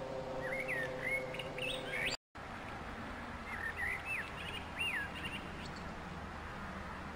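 Birds chirping in short whistled phrases that glide quickly up and down, in two bursts over steady outdoor background noise. A faint steady hum runs under the first two seconds, and the sound drops out for a moment about two seconds in.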